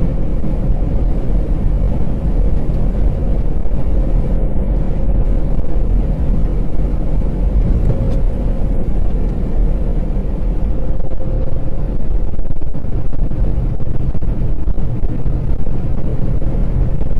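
Steady low rumble of a truck's engine and tyres at highway speed, heard inside the cab, with a faint steady tone over it.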